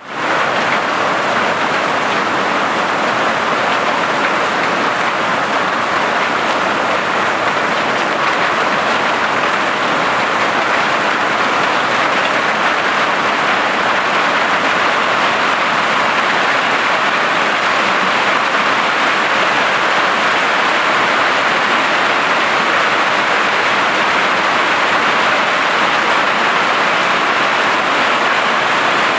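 Heavy hail pounding a tin roof: a dense, steady, loud clatter of countless small impacts.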